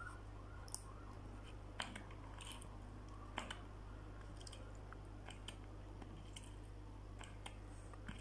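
Pump dispenser of a shampoo bottle pressed several times, giving soft clicks and squirts as shampoo goes into a bowl of hair mask.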